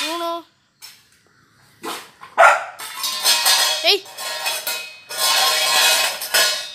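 A puppy eating from a steel bowl on paving tiles, pushing the bowl so it scrapes and clatters over the stones. Now and then the puppy gives a short yelp, one of them rising in pitch.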